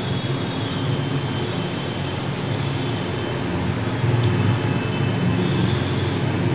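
A spatula stirring and scraping shredded chicken in a frying pan, over a steady low rumble.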